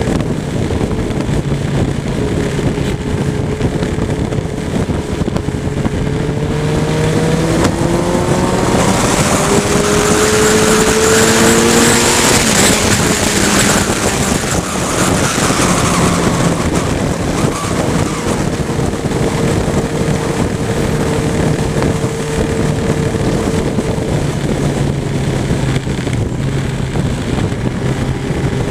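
Motorcycle engine running at road speed with wind rushing over the microphone. The engine note climbs as the bike accelerates from about seven seconds in, the wind rush swells near the middle, then both settle into a steady cruise.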